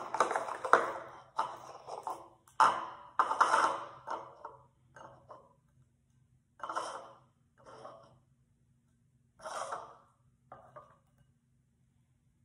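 Thick, sticky fluffy slime being squeezed and stretched by hand in a bowl: quick squishing sounds close together for the first four seconds or so, then a few single squishes a second or two apart.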